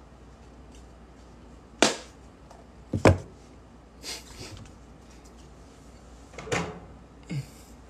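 A series of about five knocks and clatters of objects being handled and set down on a hard surface, the loudest a double knock about three seconds in.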